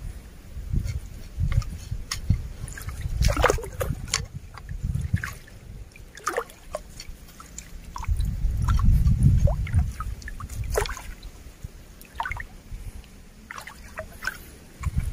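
Shallow stream water sloshing and dripping as a hand scoop net is worked through it, with scattered small splashes and drips. A low rumble swells under it, loudest around the middle.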